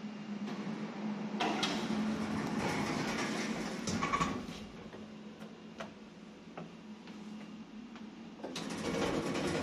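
Single two-speed sliding doors of a 1991 Otis 2000 E lift rumbling open over about three seconds, after a low steady hum. Then a quieter stretch with a few clicks, and the doors start rumbling again about a second before the end.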